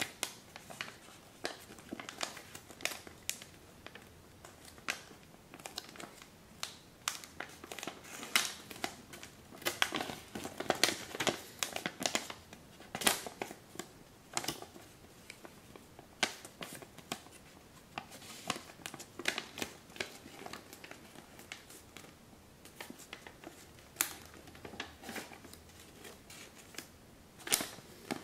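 A large sheet of kami origami paper rustling and crackling as hands fold and shape it: irregular crisp crackles, thickest in the middle stretch and sparser in a pause near the end.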